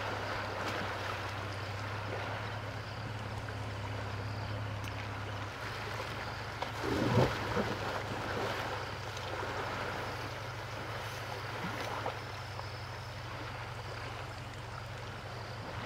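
River water flowing steadily around an elephant wading in it, with a louder splash about seven seconds in as it plunges its head under. A steady low hum runs underneath.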